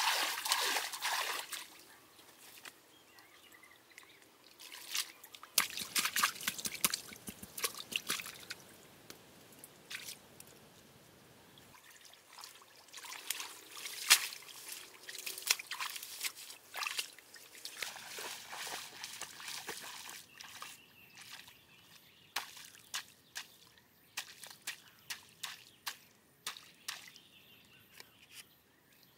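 Hands splashing and sloshing in shallow muddy water, with drips and trickles as debris is lifted out. In the last third comes a run of sharp strikes, about one a second.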